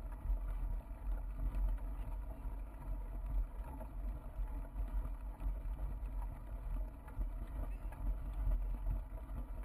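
Wind buffeting and the rumble of a bike rolling over a rough grass path, picked up by a bike-mounted action camera's microphone: a deep, uneven rumble with no distinct events.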